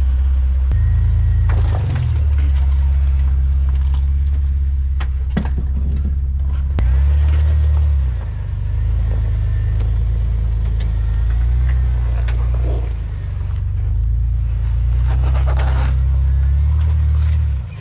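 Jeep Wrangler TJ engine running at low crawling speed as it climbs over boulders, its pitch stepping up and down with the throttle a few times. A few short, sharp knocks and scrapes sound over it.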